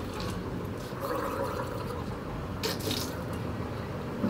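A person gargling and swishing water in the mouth while brushing teeth, with one short, sharp burst of noise partway through.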